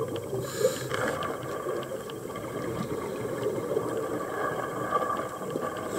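Underwater ambience: a steady motor hum carried through the water, with faint scattered clicks.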